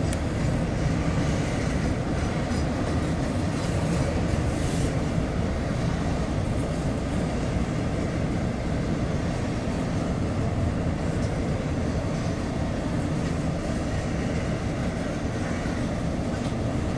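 Norfolk Southern intermodal freight train rolling past, a steady low rumble of its wheels on the rails, with a few faint clicks in the first few seconds.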